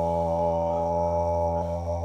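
A low, steady vocal drone, a mantra-like chanted tone held without a break as part of a sound physiopractice exercise.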